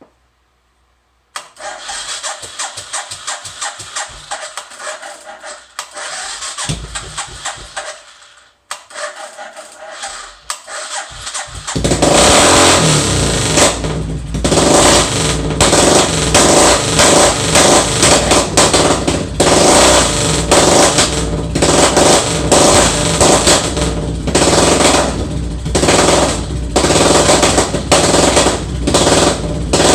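Suzuki Savage 650's single-cylinder engine being started: a weaker spell of running or cranking that dies off after several seconds, then, after a short pause, the engine catches and runs loud and uneven, with blips of throttle.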